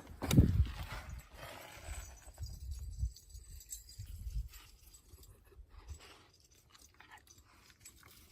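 Footsteps of a person hiking on a dirt trail: uneven thuds with scuffing, the loudest about half a second in, fading to a few soft steps in the second half.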